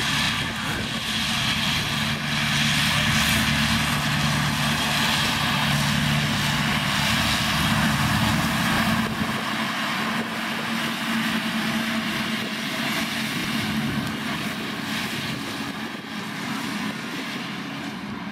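Massey Ferguson tractor running under load with a front-mounted Fella disc mower spinning as it mows grass: a steady engine drone under a loud rushing hiss. The low engine note thins out about halfway through.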